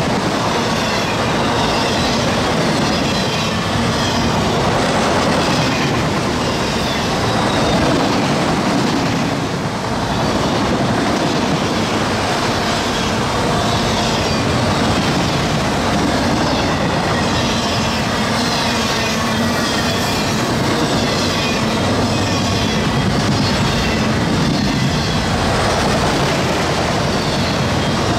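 Freight cars of a mixed freight train rolling past: a steady, loud rumble and rattle of steel wheels on rail and the cars' bodies, with no let-up.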